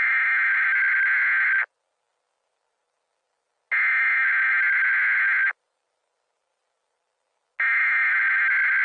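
Emergency alert tone: a steady, buzzy high tone sounding in three identical bursts of about two seconds each, with about two seconds of silence between them.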